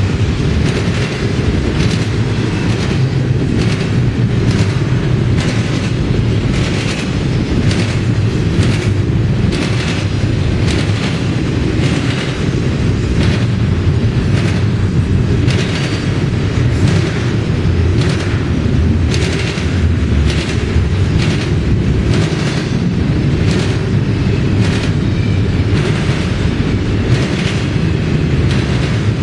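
Double-stack container freight train rolling past at a steady pace: a loud, heavy low rumble of the well cars, with repeated sharp clacks of wheels over rail joints.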